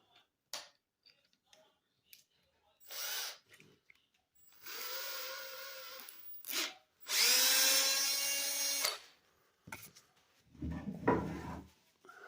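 Small electric power tool run in several short bursts, a pitched whirr each time; the longest and loudest, near the middle, spins up at its start and lasts about two seconds.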